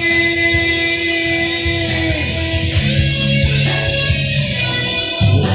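Rock band playing an instrumental passage between vocal lines, led by guitar. A held note ends about two seconds in, and bass guitar and drums continue under the strummed guitar.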